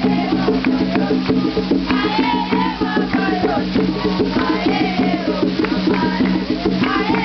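Music with a fast, dense percussion rhythm of knocks and rattles, with voices singing over it.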